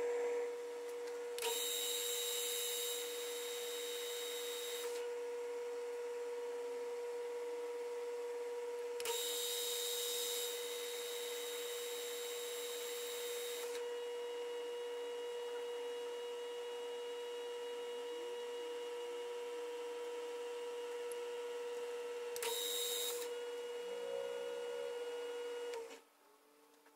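Small metal lathe running with a steady hum while a tool turns brass stock held in a collet. Three spells of louder, higher cutting noise come while the tool is in the cut: near the start, around ten seconds in, and briefly near the end. The sound cuts off abruptly about a second before the end.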